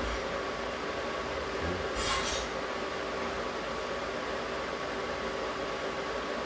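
Steady mechanical hum with a few faint steady tones, and a brief rustle about two seconds in.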